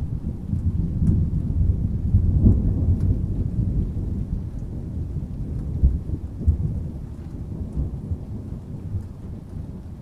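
Rolling thunder rumbling deep and low, swelling over the first few seconds and then slowly dying away, with rain falling steadily underneath.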